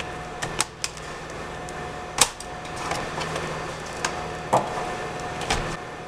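Clicks and knocks of a Toshiba Satellite L355 laptop's plastic case being handled, closed and turned over onto its top, with the sharpest knock about two seconds in.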